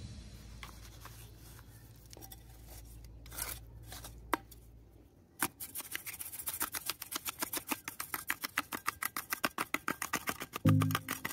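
Steel trowel tapping and scraping damp concrete mix as it is packed into a plastic container mould: a few scattered taps, then from about halfway a quick, even run of sharp taps, about five a second. Music comes in near the end.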